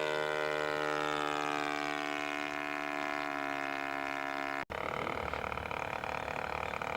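Engine of a radio-controlled scale Nieuport 28 model in flight, a steady drone whose pitch slowly falls. About four and a half seconds in it breaks off for an instant, then carries on sounding rougher.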